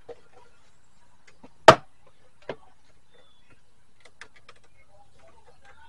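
A sharp snap about two seconds in and a smaller click just under a second later, with faint clicks and rattles near the end: a 2012 GMC Sierra's interior door panel being fitted back on, its clips and pins snapping into the door.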